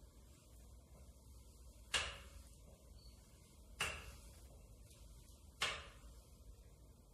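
Hand-cranked tube roller bending a galvanized steel tube into a ring, giving three sharp knocks about two seconds apart, each ringing briefly.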